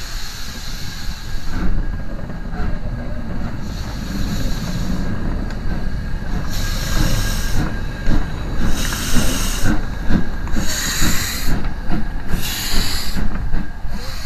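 LMS Black Five 4-6-0 steam locomotive 45212 hissing steam, then moving off slowly. From about six seconds in, four loud bursts of steam hiss come at a slow, even beat, roughly every one and a half to two seconds, over a low rumble with short knocks.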